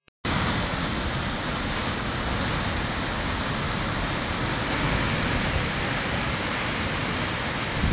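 Sea waves breaking on rocks: a steady, rushing hiss of surf with no single crash standing out.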